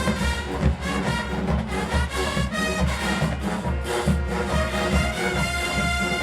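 Marching band playing: brass section over a steady drum beat.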